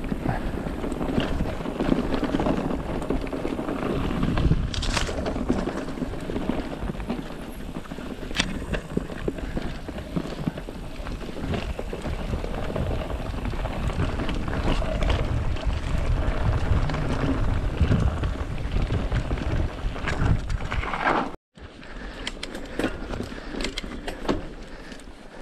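Mountain bike riding fast down a dirt singletrack: tyres rolling over dirt with a steady low rumble, and the bike rattling and knocking over bumps. The sound cuts out for a moment near the end and comes back quieter.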